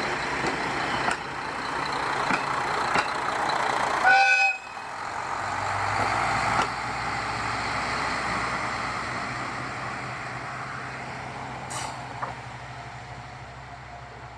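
A diesel railcar's horn gives one short toot about four seconds in, over the running of its engine. A low engine hum then builds and slowly fades away.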